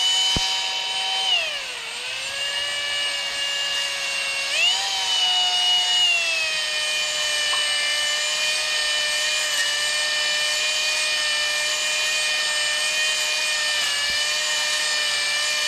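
Power drill spinning a cylinder hone in a cylinder bore of a Ford Barra inline-six block, to take out the ring lip and fine scoring: a steady motor whine over the stones scraping the cylinder wall. The whine drops in pitch about two seconds in, climbs again at around four and a half seconds, then holds steady and stops at the end.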